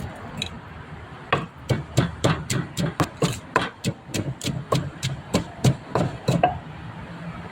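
Pestle pounding som tam in a mortar: a quick, even run of knocks at about four a second, starting about a second in and stopping about a second before the end.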